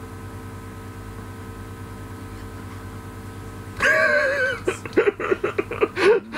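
A man bursts out laughing about four seconds in: a long, high-pitched cry of laughter, then a run of quick laughing pulses. A steady low hum sits under it.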